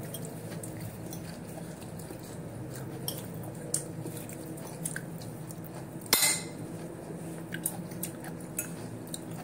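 A metal fork scraping and tapping on a ceramic plate during a meal: scattered light clicks, with one sharper, louder clink about six seconds in, over a steady low hum.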